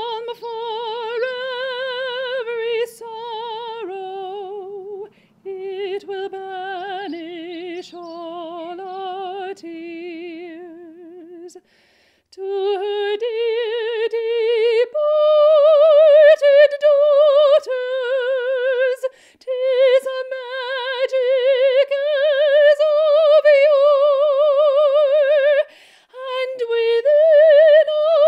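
A woman singing solo in slow phrases of long held notes with wide vibrato, largely unaccompanied. A faint low steady note sits under the first few phrases, and the voice moves higher about halfway.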